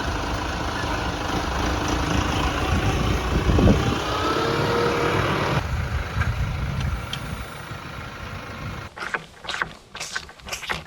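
Engine of a farm vehicle hauling hay bales, running steadily with a deep rumble. A brief rising whine sounds in the middle. Near the end the engine gives way to a few short, sharp clicks and knocks.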